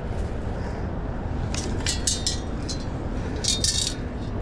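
Sand and small stones rattling and hissing in a metal sand scoop as it is shaken to sift out a target: a few short bursts about a second and a half in and again near the end, over a steady low background rumble.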